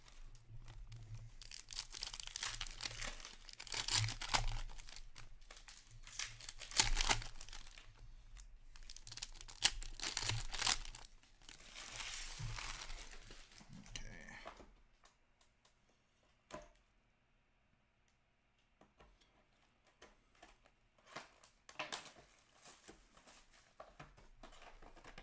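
Hockey card pack wrappers being torn open by hand and crinkled, in repeated bursts. After a few seconds of near quiet with a single click, there are more rustles and light knocks near the end.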